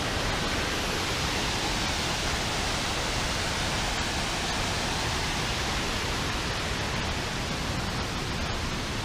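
Steady rushing roar of a large mountain waterfall, an even wash of falling water without a break.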